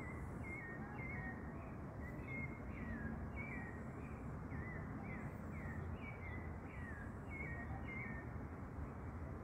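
A small animal's repeated chirping call: short notes that fall in pitch, about two a second, stopping shortly before the end, over a steady low background hum of outdoor noise.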